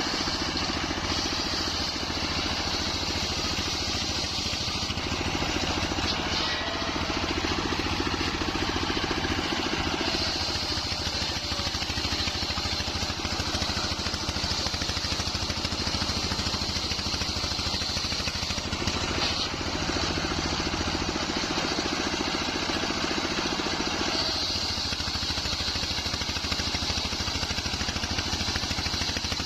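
Wide-bladed circular sawmill running steadily on its engine while sawing nyampoh timber. A high whine from the blade comes and goes every several seconds.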